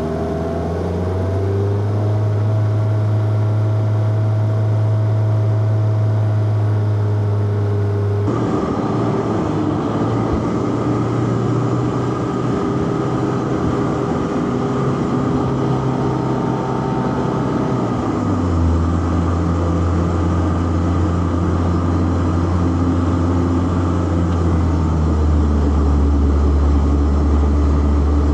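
Four-cylinder car engine running under load on a winding drive, with a steady engine note. The sound changes abruptly about eight seconds in, and the note steps down in pitch about two-thirds of the way through, then holds steady.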